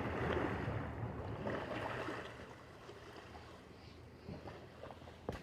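Wind rumbling and buffeting on the microphone, louder for the first two seconds and then easing, with one sharp click near the end.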